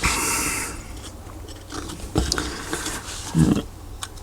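Handling noise from small alcohol-stove parts being pressed back together: a short hiss at the start, then two dull knocks, about two and three and a half seconds in.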